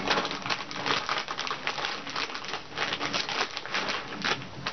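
Crinkly plastic snack bag rustling and crackling as it is handled, in quick irregular crinkles.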